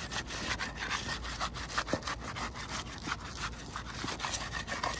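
Roof shingle being broken loose from the roof by prying and scraping: a continuous scraping, crackling sound with many sharp snaps and clicks throughout, as part of a brittleness (repairability) test.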